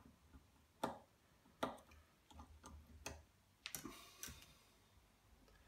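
Small screws and a precision screwdriver clicking against an Elma Jumbo rotary switch as it is unscrewed: a few separate sharp clicks about a second apart, then a short cluster of clicks and rustle as the parts are set down on a wooden desk.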